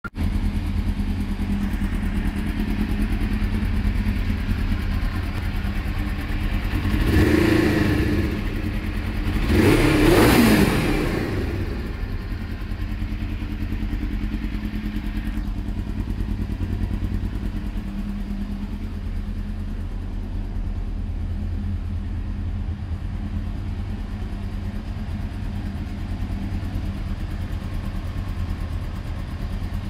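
2000 Suzuki GSX-R600's inline-four engine, fitted with an aftermarket slip-on exhaust, idling steadily. It is revved briefly twice, about seven and ten seconds in, and settles back to idle.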